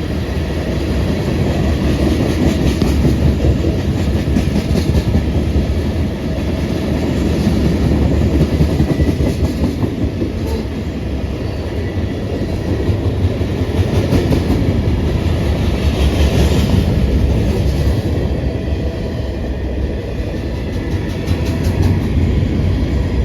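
Freight train cars rolling past in a steady rumble of steel wheels on rail, with a repeated clicking as the wheels cross rail joints.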